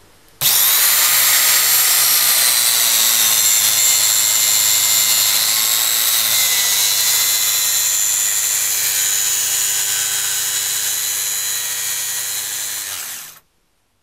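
An electric power tool motor running steadily with a high whine, starting abruptly just after the start and cutting off abruptly near the end.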